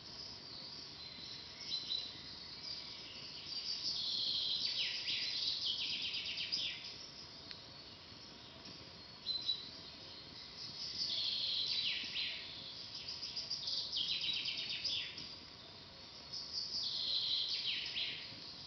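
A songbird singing a trilled phrase that drops in pitch at its end, repeated three times a few seconds apart, over a faint steady hiss.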